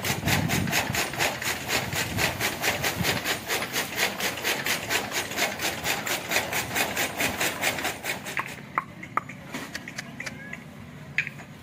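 Bull-powered gear toka machine (fodder chaff cutter) running: a fast, even rasping clatter of about four strokes a second, which stops suddenly about eight seconds in, leaving a few faint scattered clicks.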